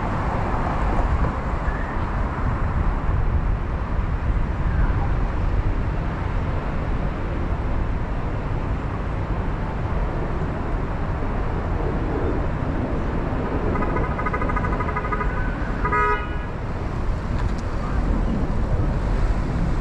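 Street traffic noise with a steady low rumble. A car horn sounds for about a second roughly three-quarters of the way through, then once more briefly.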